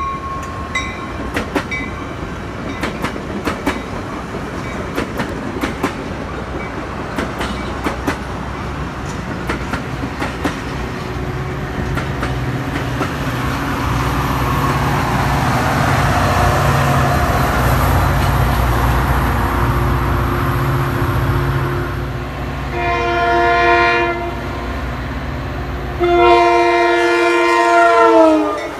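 Metra commuter train of bilevel cars passing with its wheels clicking over rail joints, then the diesel locomotive rumbling by. Near the end a train horn sounds twice, a short blast and then a longer one whose pitch drops as the train passes.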